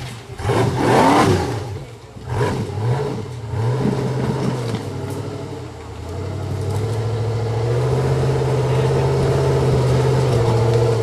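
Off-road rock-climbing buggy's engine revving hard in short bursts, then held at steady high revs for several seconds as it works up the rocks.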